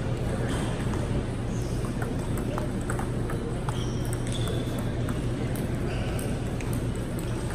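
Table tennis rally: the ball ticks sharply off the bats and table in a quick run of clicks, roughly two a second, for the first few seconds of the point. A steady low hum runs underneath.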